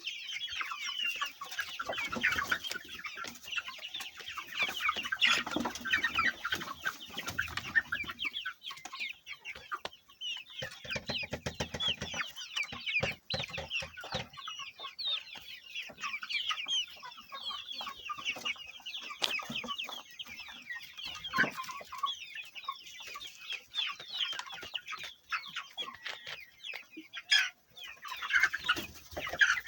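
A flock of poultry-farm chickens calling continuously, many birds clucking and chirping over one another.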